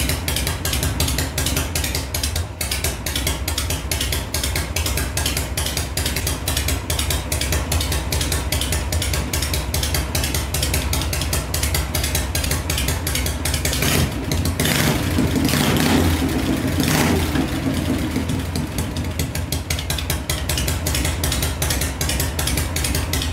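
Harley-Davidson Shovelhead V-twin engine idling with steady, even pulses while its carburetor is adjusted to improve a poor idle. The engine picks up briefly about two-thirds of the way through.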